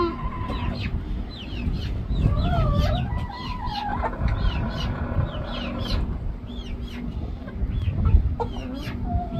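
Chickens clucking and peeping, with short high chirps repeating two or three times a second, over a low rumble.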